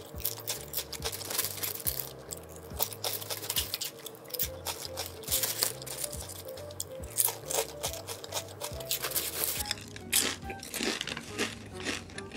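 Crunching of thick, hard GS25 Richam potato chips being bitten and chewed, a rough sandpaper-like crunch repeated many times, over light background music.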